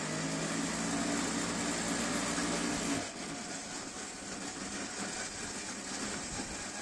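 A motor vehicle's engine running with a steady hum for about three seconds, then the sound turns rougher and noisier.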